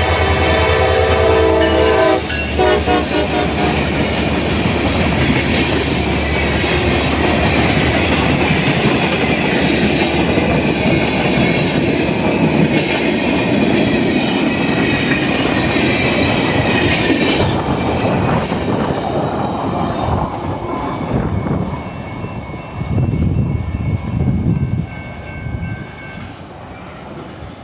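A CSX freight train led by an EMD SD40-3 diesel locomotive passing close by. Its multi-note air horn sounds and cuts off about two seconds in. Then the cars roll past with wheels clicking over rail joints and a steady high squeal, which stops about two-thirds of the way through, and the rumble fades toward the end.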